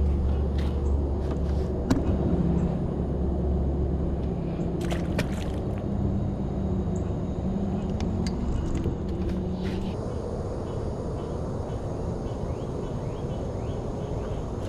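A low, steady motor drone with a pitched hum that dies away about ten seconds in, with a few sharp clicks.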